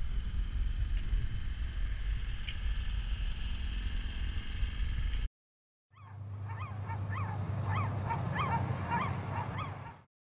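A steady low rumble that cuts off suddenly about five seconds in. After a short silence come honking bird calls, goose-like, from several birds, overlapping and repeating several times a second over a low steady hum.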